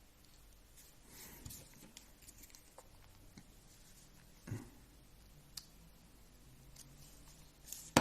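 Quiet handling of small plastic RC car differential parts: faint rustles, a soft knock a little past halfway and a light tick shortly after.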